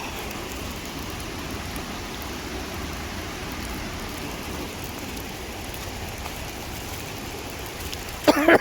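Steady hiss of rain and sleet falling. Near the end comes a short, louder voice-like sound that falls in pitch.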